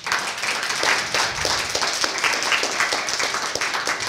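Audience applauding: many hands clapping in a dense, uneven patter that starts right after the talk's closing thanks.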